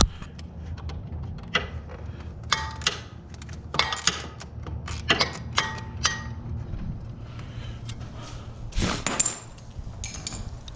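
Hand tools clinking and tapping against metal as intake fittings are tightened: a dozen or so sharp clinks, some ringing briefly, over a low steady hum.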